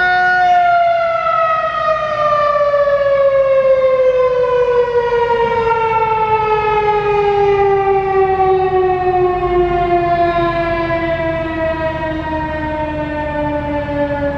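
Federal Signal 2001-SRN rotating two-tone outdoor warning siren winding down after its short alert: the held chord starts to drop about half a second in and falls slowly and steadily in pitch as the rotor coasts to a stop.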